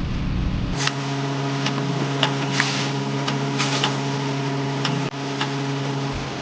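A small electric motor runs with a steady hum, with a few light clicks over it. A low rumble precedes it in the first second.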